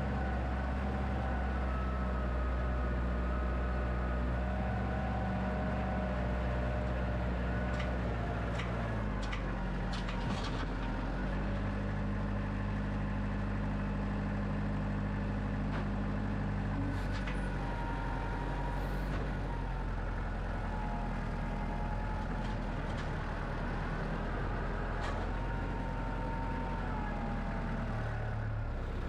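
Wood-Mizer LX25 band sawmill running, its engine note holding steady and shifting slightly a few times, with a wavering whine above it and a few light clicks.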